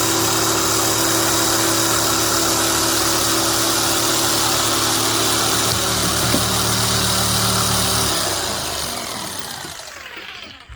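Electric jigsaw motor running steadily, then switched off about eight seconds in and winding down, its pitch falling and fading until it stops.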